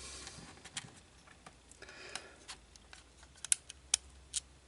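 Small screw being driven into a plastic remote-control casing with a screwdriver: faint scraping near the start and again about two seconds in, then several sharp light clicks and taps of tool and plastic parts.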